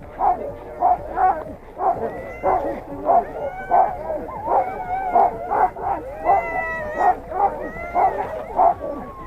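Many sled dogs barking and howling at once: overlapping yips and howls, with barks repeating about twice a second, the excited clamour of a harnessed team.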